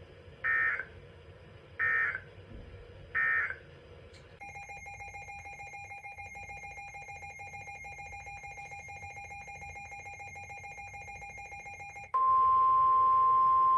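Emergency Alert System header: three short bursts of SAME data tones, then a quieter steady tone with a fast flutter for about eight seconds. Near the end comes a loud, single, steady NOAA Weather Radio alert tone that starts a new severe thunderstorm warning.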